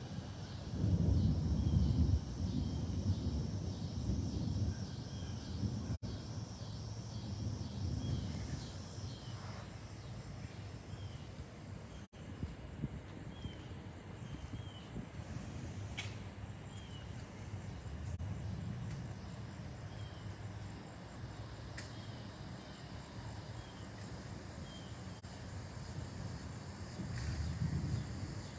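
Strong thunderstorm wind gusts buffeting the microphone in low rumbling surges, strongest about a second in and again near the end. Faint short chirps repeat throughout.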